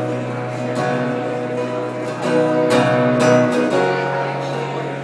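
Acoustic-electric guitar strummed live, steady chords changing about every second or so.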